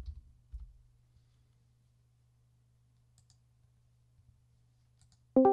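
A few soft computer mouse and keyboard clicks, then quiet; right at the end a sudden loud ringing musical note strikes and begins to die away.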